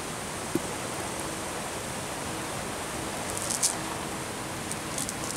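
Steady outdoor hiss, with a sharp click about half a second in and a few brief, light crackles later on.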